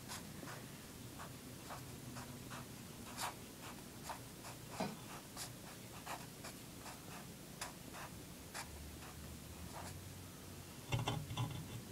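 Felt-tip marker scratching on paper in many short, separate strokes while an equation is written out; faint.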